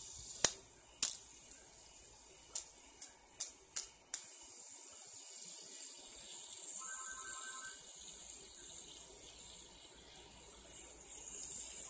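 Plastic fidget spinner being flicked and handled, with several sharp clicks in the first few seconds, then a steady high whirr as it spins.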